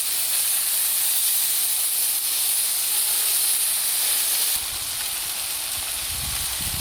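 Food sizzling in a hot pan, a steady hiss. About two-thirds of the way through the sound changes abruptly and a low rumble joins it.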